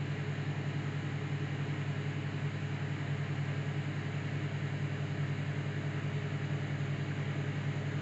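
Whirlpool microwave oven running with its turntable turning: a steady, even hum with a hiss over it, unchanging throughout.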